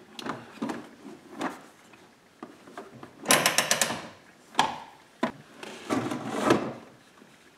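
The hard plastic centre console of a 2011 Hyundai Elantra Touring rattling and knocking as it is lifted and worked into place by hand. A quick burst of rapid clattering comes about three seconds in, then a couple of single knocks and a longer scraping clatter near the end.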